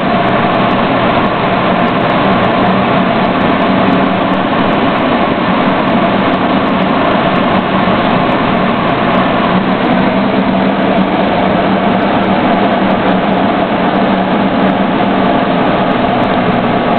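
Military convoy vehicle driving, heard from inside its cabin: a loud, steady engine drone and road noise that holds even throughout.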